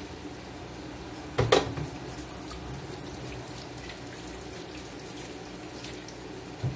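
Kitchen tap running into a stainless steel sink as jars and lids are rinsed under it. A loud clunk about one and a half seconds in, and a smaller knock near the end.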